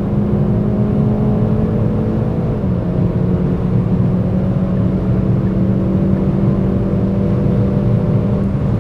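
Hyundai i30 N's turbocharged 2.0-litre four-cylinder running at high, nearly constant revs at autobahn speed, with heavy wind and road noise. Its note dips slightly in pitch about a third of the way in, then holds steady.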